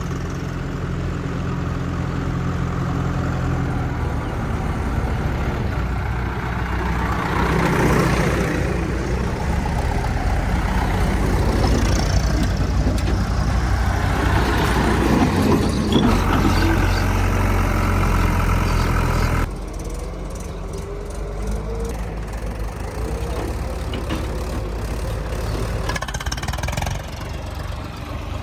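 Heavy diesel engine of a backhoe or tractor running, working harder through the middle with extra noise over it, then dropping suddenly to a lower, steadier running about two-thirds of the way in.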